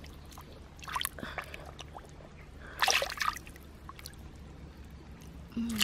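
Hands splashing and sloshing in shallow muddy water while groping in the mud for fish, with two louder splashes about one and three seconds in.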